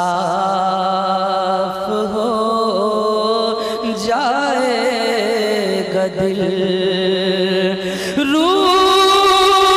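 A man's voice singing a naat through a microphone and PA, without instruments: long held notes with wavering ornaments. About eight seconds in, the voice glides up to a higher held note.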